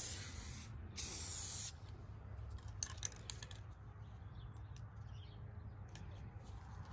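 Rust-Oleum aerosol spray paint can hissing in two short bursts, the second about a second in, with its 5-in-1 nozzle on the low-output setting 1. A few faint clicks follow.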